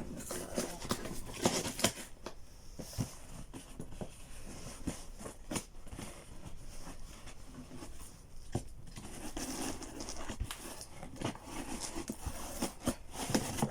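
Scissors snipping and scraping at the tape of a cardboard delivery box, with irregular clicks, tearing and rustling as the box is worked open.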